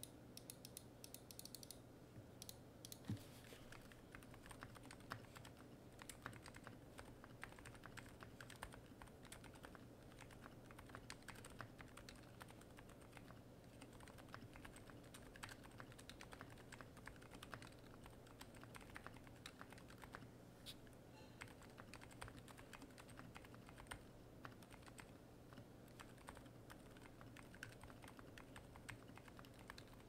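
Faint, soft keystrokes in a steady stream of typing on a YDKB BLE40 40% mechanical keyboard with TTC Silent Red V3 silent linear switches, Costar stabilizers and DSS keycaps. A single knock sounds about three seconds in, just before the typing starts.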